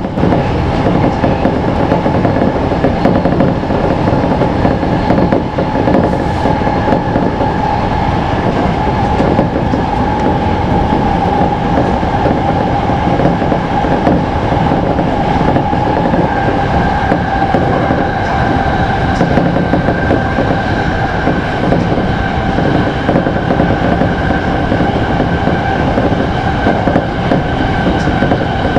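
Tōyō Rapid 2000 series electric commuter train running at speed, heard from inside the driver's cab: a steady rumble of wheels on rail with a held steady tone over it.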